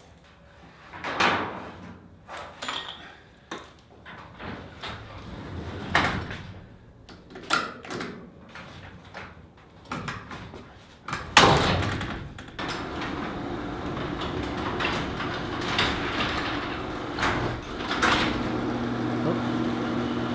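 Sectional garage door being handled: scattered knocks and clicks, then one loud clunk about 11 seconds in. After that a LiftMaster 1/3 HP garage door opener runs with a steady hum as the door moves down to close on the new bottom seal.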